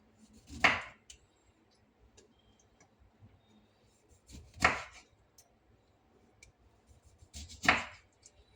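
A kitchen knife cutting down onto a cutting board three times, three to four seconds apart, each cut a short scraping stroke.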